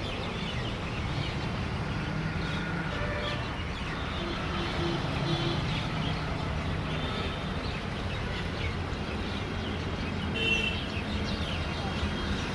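Small birds chirping and calling many times over a steady low rumble.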